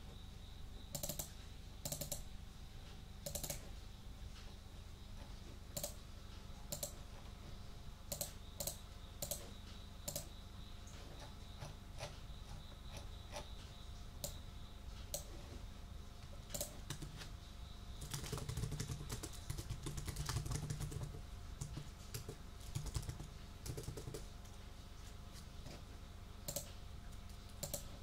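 Computer keyboard being typed on: scattered, irregular keystrokes, with a quick run of rapid typing about two-thirds of the way through.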